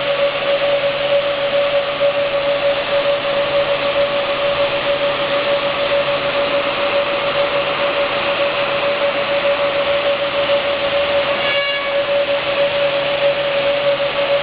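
LW-1200 automatic raised panel door tenoning and drilling machine running with its motors on: a steady, loud whine over an even mechanical hiss. About three quarters of the way through there is one short, higher blip.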